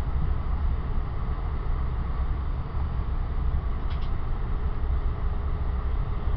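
Steady running rumble of a passenger rail car at speed, heard from inside an ex-Metroliner cab car: wheels on rails and car noise at an even level. A faint double click about four seconds in.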